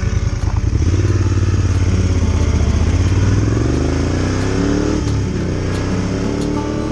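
Moto Guzzi Griso 1200 SE's air-cooled V-twin engine, running at a low steady beat for about a second, then rising in pitch as the bike pulls away and accelerates, with a dip about five seconds in at a gear change before climbing again.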